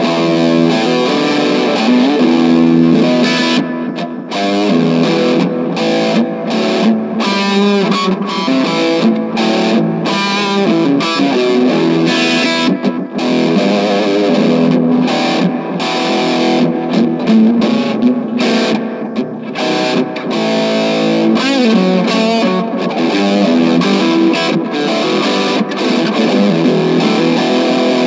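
Electric guitar, a Gibson Les Paul Jr with P90 pickups, played through a VOX AC4C1-12 combo amp with distortion and delay. It plays a continuous run of notes and chords.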